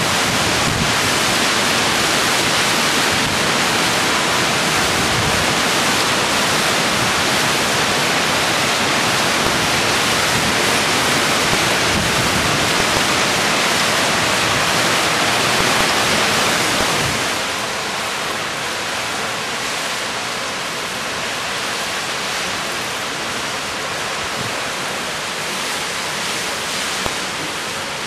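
Hurricane wind and driving rain: a loud, steady rush of noise that eases somewhat about seventeen seconds in.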